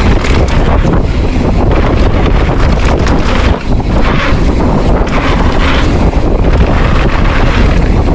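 Loud wind rushing and buffeting against the microphone, in steady gusting surges, as from moving at speed through the air.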